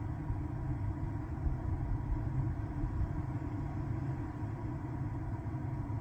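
Steady low background rumble inside a car cabin, with a faint steady high hum and no distinct events.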